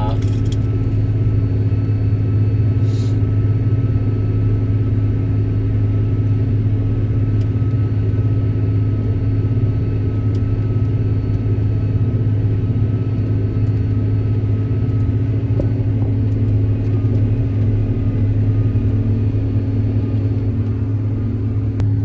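Case IH combine running at road speed, heard from inside the cab: a steady low drone that does not change.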